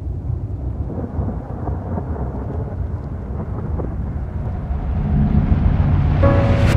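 Deep, thunder-like rumble with a rainy hiss on top, swelling louder about five seconds in. Sustained musical tones, piano-like, enter near the end.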